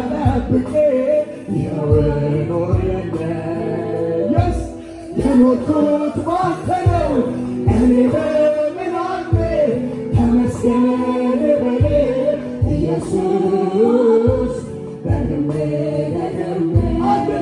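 Live Ethiopian gospel worship song: a male lead singer singing through an amplified microphone, backed by a choir, over accompaniment with a steady beat.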